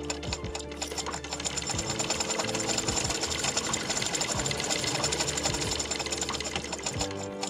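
Vintage sewing machine stitching a zipper into fabric: a rapid, even clatter of the needle mechanism that starts just after the beginning and stops shortly before the end.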